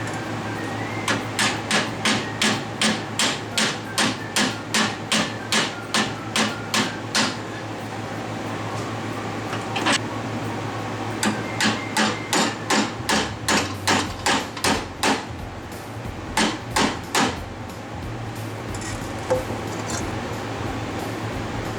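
Hammer blows on titanium sheet, hand-beating it into the shape of a muffler silencer cap. The blows come in quick runs, about two or three a second, broken by short pauses, with a last group of three near the end.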